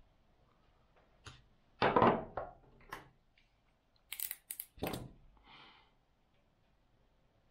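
Small hand tools snipping the trimmed ends of a fishing-line knot and being knocked down on a table: a click, a louder knock about 2 s in, then two sharp snips just after 4 s followed by another knock and a brief rustle of line.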